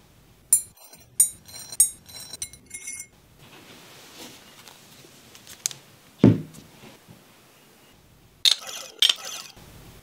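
Metal clinks and taps from handling a miniature aluminium four-cylinder model engine, the Toyan FS-L400: a quick run of sharp, ringing clinks, then one dull thud about six seconds in as it is set on the mat, and a few more clicks near the end.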